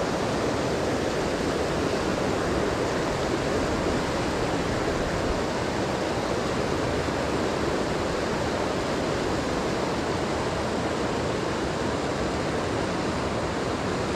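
Mountain river rushing steadily over rocks through riffles, an even, unbroken sound of running water.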